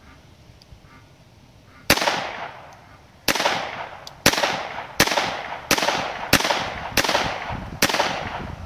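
Eight shots from a .22 LR handgun, fired at an uneven pace of roughly one every half second to second and a half, each crack followed by a short echoing tail.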